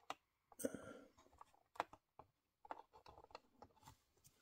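Faint clicks, taps and a brief rustle of small scale-model diorama parts being handled and pressed into place by hand.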